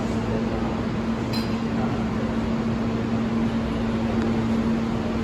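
Subway train standing at the platform, its electrical and air-conditioning equipment giving a steady hum with a constant low tone, and a short high clink about a second in.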